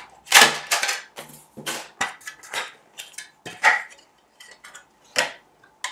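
Hard plastic clicks and clacks from a polycarbonate ice-fishing tip-up being put together by hand, as the flag rod is fitted into the base and the stand with its reel is folded up and locked into working position. The clacks come irregularly, the loudest about half a second in.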